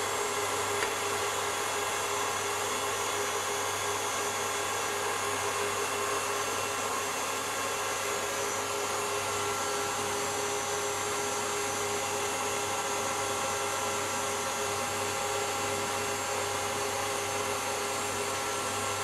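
KitchenAid stand mixer running steadily with its whisk attachment, a constant motor whine whipping egg whites into meringue as sugar goes in.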